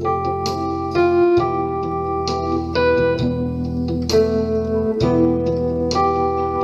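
Keyboard played: a slow melody of single notes, struck about once or twice a second, over held low chords.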